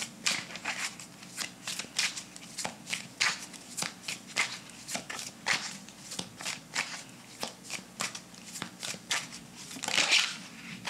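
A deck of tarot cards being shuffled by hand: a steady run of crisp card slaps, about three or four a second, with a louder, longer rustle near the end.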